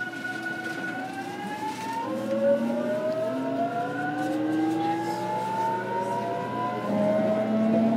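JR Kyushu 813-series electric train heard from inside its motor car: the inverter and traction motors whine, a steady tone at first, then from about a second in several tones climbing together as the train accelerates.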